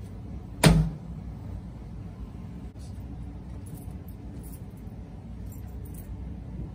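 One heavy thud about two-thirds of a second in, a canvas cornhole bean bag landing on a wooden board. After it, only a low steady hum with a few faint clicks.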